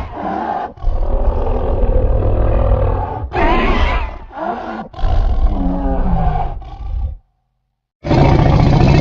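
Dragon roar sound effect: a series of deep growls and roars, one sliding down in pitch, then a brief silence before another roar begins about eight seconds in.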